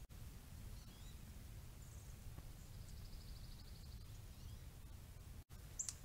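Faint songbird calls over a low wind rumble: a few scattered high chirps, then about three seconds in a rapid trill of evenly repeated notes lasting about a second, and a sharper chirp near the end.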